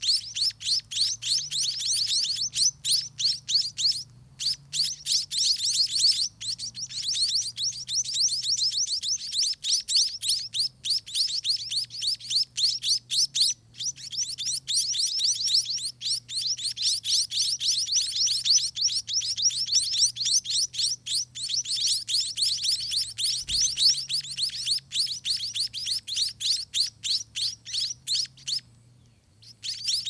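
Spotted munia (scaly-breasted munia) nestlings begging while a parent feeds them: rapid, nearly continuous high-pitched chirping that stops briefly near the end.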